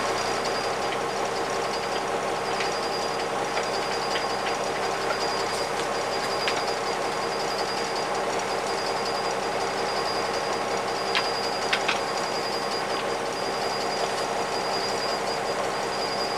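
The bus's diesel engine idling steadily, with a thin high whine above it and a couple of sharp clicks about two-thirds of the way through.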